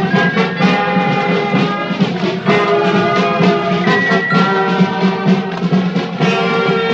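Brass band music: trumpets and trombones playing a tune in held notes.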